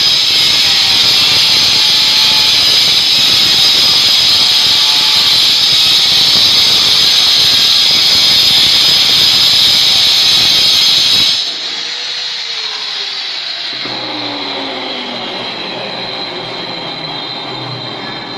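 Angle grinder's diamond disc cutting into a granite countertop slab, a loud, steady, high-pitched screech. It stops suddenly about eleven seconds in, leaving a quieter whine that falls in pitch.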